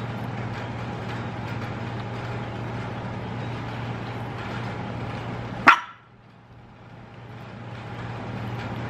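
A small Yorkshire terrier gives one short, sharp bark a little past halfway, over a steady low room hum.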